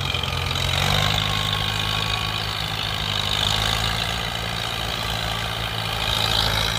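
Fiat 640 tractor's diesel engine running steadily under heavy load while driving a rear rotary tiller through deep paddy mud; its note rises a little about a second in.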